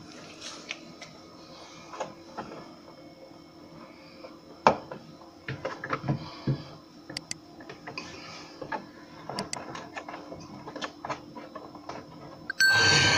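Scattered light clicks and knocks of hands working inside a refrigerator's freezer compartment as ice and water are cleaned out, over a steady low hum. A louder rushing noise comes in near the end.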